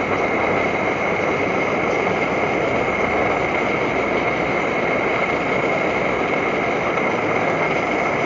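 Primus MFS pressurised multi-fuel stove burning kerosene at full flame, its control valve wide open: a steady, even burner roar with a constant high tone running through the hiss.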